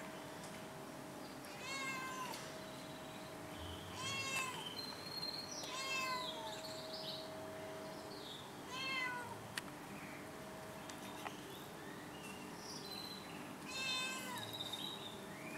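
Domestic cat meowing repeatedly, about five meows a couple of seconds apart, each dropping in pitch at the end.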